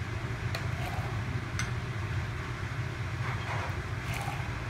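Ginger beer poured from a bottle into a metal shaker tin over ice, with a couple of light clinks in the first two seconds, over a steady low hum.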